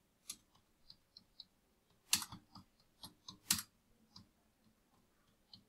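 Faint, irregular keystrokes on a computer keyboard as a word is typed out, with louder clusters of clicks about two seconds in and about three and a half seconds in.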